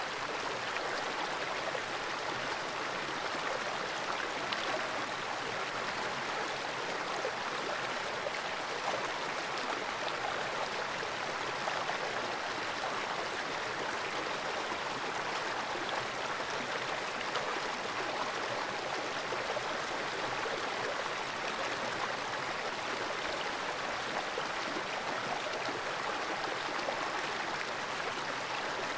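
Fast-flowing stream water rushing over rocks, a steady, even hiss, heard through a camera submerged in the pool.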